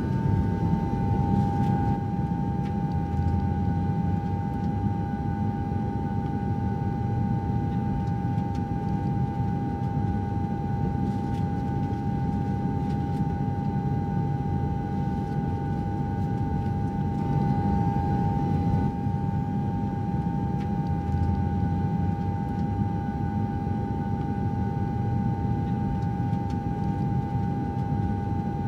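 Steady low rumble of a vehicle in motion, with a constant whine above it and no break or change.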